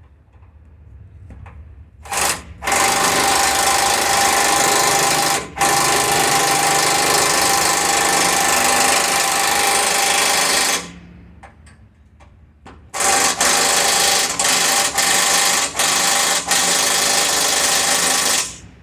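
Impact wrench hammering on a 19 mm bolt as the skid steer's bucket pin is put back together: a short burst about two seconds in, a long run of about eight seconds, then after a pause a second run of about five seconds, broken by several quick trigger releases.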